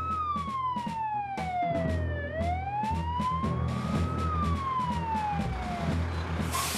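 Fire engine siren wailing in long slow sweeps: it falls, rises again, then falls and fades out about six seconds in, over a low steady rumble. A short hiss comes near the end.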